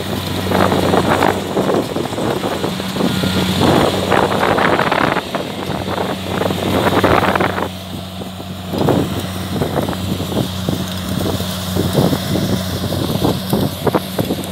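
Kubota DC70 combine harvester's diesel engine running steadily at working speed, a constant low hum, with a dense crackling rustle over it that is heaviest in the first half.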